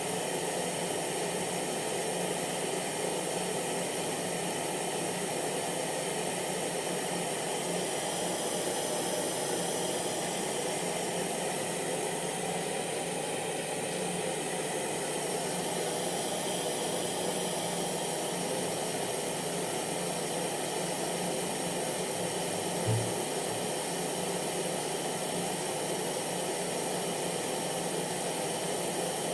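A hair dryer running steadily: an even rushing hiss of fan and airflow under a faint motor hum, with one brief low bump about three-quarters of the way through.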